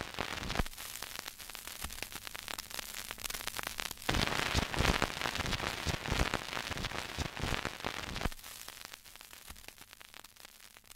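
Crackling, static-like hiss dotted with many irregular clicks. It swells louder for a few seconds in the middle, then drops off and fades toward the end.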